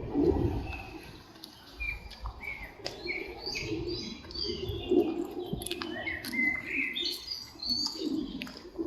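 Small birds chirping in quick repeated calls, with a few sharp clicks and soft low rustling and knocking sounds among them.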